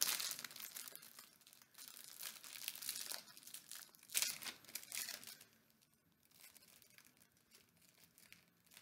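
Thin plastic wrapper of an individually wrapped cookie being torn open and crinkled by hand, crackling irregularly, busiest over the first five seconds or so and fainter after that.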